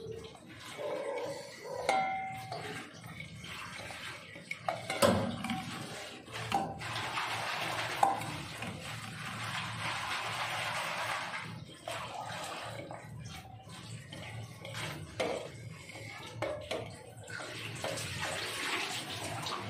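Water running from a kitchen tap into the sink for several seconds, twice, with steel dishes and utensils clanking; the loudest is a sharp clank about five seconds in.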